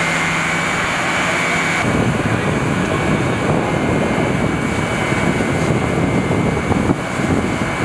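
A fire engine's pump engine runs steadily with a high whine and a low hum, under the rush of a hose jet spraying water. About two seconds in, the sound changes abruptly to a rougher, steady rumble.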